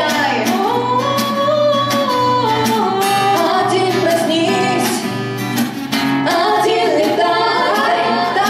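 Two young female voices singing a song with long, gliding held notes, over strummed acoustic guitar.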